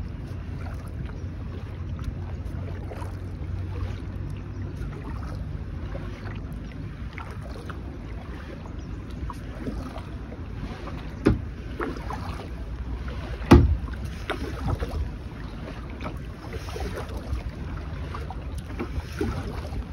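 Kayak paddling: water splashing and dripping around a plastic kayak hull, with many small ticks, over a steady low wind rumble on the microphone. Two sharp knocks, about halfway through and a couple of seconds later, the second being the loudest sound.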